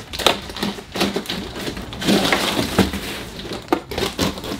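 A cardboard box being opened: a utility knife cutting along the packing tape, with cardboard scraping and handling noise and a few sharp knocks.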